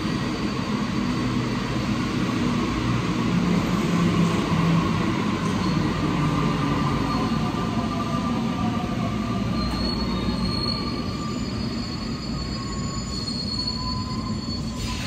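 Alstom NS-93 rubber-tyred metro train running into the station and slowing to a stop, with a steady rumble and a high squeal in its last few seconds.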